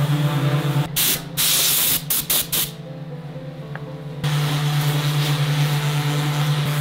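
Random orbital sander running against an end-grain wooden cutting board, a steady hum with sanding noise. About a second in it is broken by several short loud hisses. After a quieter moment the sander starts up again a little after four seconds in.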